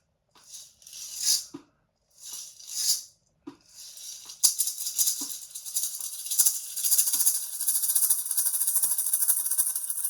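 Maraca shaken in slow swishes about every second and a half, each building up and ending with a soft knock of the beads. About four and a half seconds in it turns to a fast, continuous rattle.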